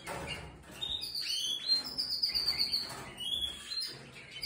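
Spanish Timbrado canaries chirping: a string of short, high calls, some gliding up or down, overlapping one another.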